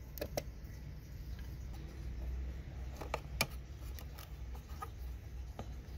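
Small plastic clicks and scrapes from the casing of an old Panasonic desk phone as the cord's modular plug is unclipped from its jack and the battery compartment cover is pried open. A few sharp clicks, the loudest about three and a half seconds in, over a steady low hum.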